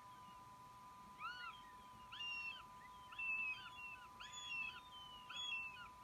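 Juvenile northern goshawk food-begging at the nest: five calls, each rising and falling in pitch, about one a second, over a steady faint hum.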